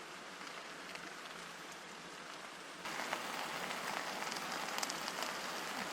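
Trout frying in butter in a pan, a steady crackling sizzle that gets louder about three seconds in.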